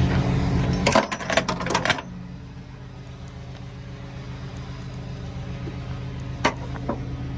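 Flatbed tow truck's engine idling steadily, with a quick run of metallic knocks and rattles about a second in, after which the engine sounds quieter; two sharp clicks near the end.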